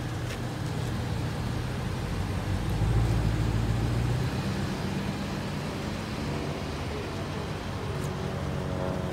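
A car engine running with a low, steady rumble that swells louder about three seconds in, then settles back.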